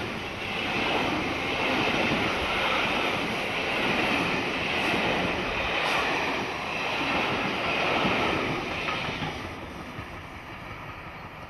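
A train of passenger coaches rushing past at speed on the main line: a loud wheel-and-rail and air rush that swells and eases about once a second, then fades away as the last coach goes by about nine seconds in.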